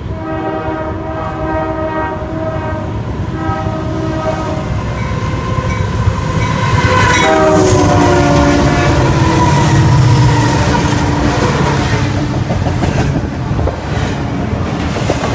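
Union Pacific diesel freight locomotive's air horn sounding a series of blasts as the train approaches, its chord dropping in pitch as the lead locomotive passes about seven seconds in. The horn is followed by the loud rumble and clicking of the intermodal train's locomotives and stack cars rolling by.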